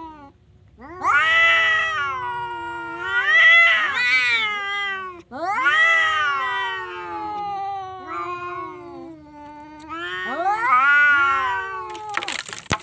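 Domestic cat yowling: about five long, drawn-out meows that rise and fall in pitch, with a short noisy burst near the end.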